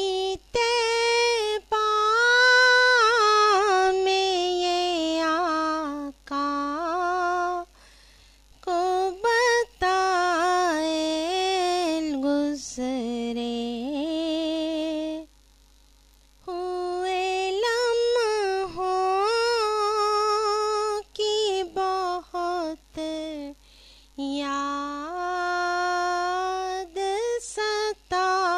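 A woman's voice singing an Urdu naat unaccompanied, in long wavering phrases with short silent pauses between them.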